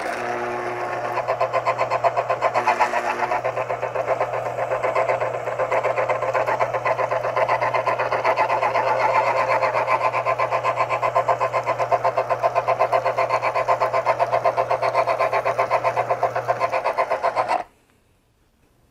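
Cuisinart CCJ-500 citrus juicer's motor spinning its reamer against a pressed grapefruit half: a steady hum with a fast, even pulsing over it. It cuts off suddenly near the end as the fruit is lifted and the press-activated motor stops.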